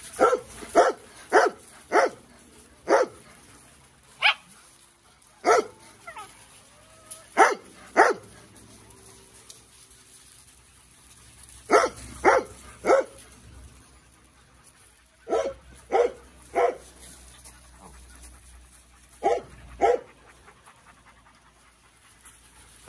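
A dog barking: short, loud barks in runs of two or three about half a second apart, with a pause of a few seconds between runs.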